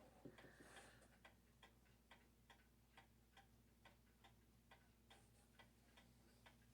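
Faint, steady ticking of an 1880s Gilbert Somerset mantel clock fitted with a modern movement, about two to two and a half ticks a second.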